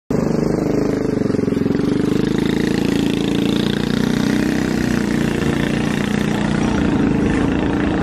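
A small engine running steadily at an even speed, with a low, pulsing hum that holds level throughout, over faint street chatter.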